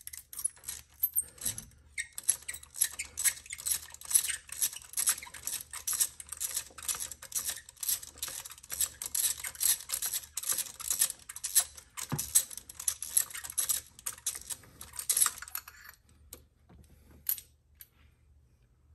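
Hand ratchet clicking in a fast, continuous run of short strokes as a spark plug is backed out of the engine head. The clicking stops about 16 seconds in.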